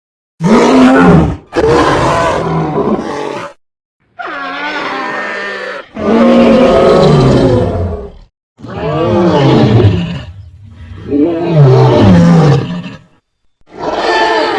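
A run of monster roar sound effects played one after another, about seven in all, each cut off by a brief silence; several slide downward in pitch.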